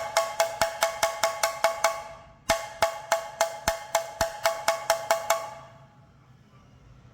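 Omele bata drum struck in two quick runs of about ten strokes each, about five a second, with a short pause between. Each stroke gives a high, clear, ringing tone.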